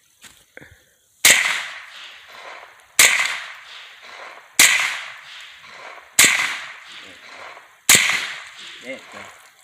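Five gunshots fired at a steady pace, about one and a half seconds apart, each followed by a trailing echo.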